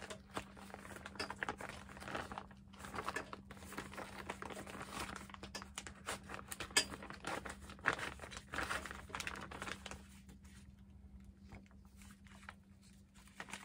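Crinkling and rustling of a ride-on mower seat's cover and the plastic around its seat switch as they are pulled open and handled, with scattered small clicks and knocks. It goes quieter about ten seconds in.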